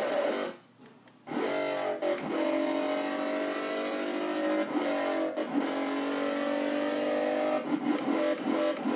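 Korg microKORG synthesizer playing a gritty, distorted bass patch: a sine wave with cross modulation, a second oscillator two octaves down, unison, a resonant low-pass filter and a sawtooth LFO. Held notes drop out briefly about half a second in, then sound on with a slowly drifting, warbling pitch and a few short breaks between notes.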